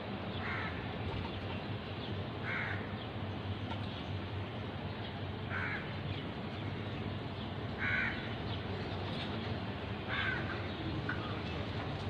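Crow cawing: five short caws spaced about two to three seconds apart, over a steady low street hum.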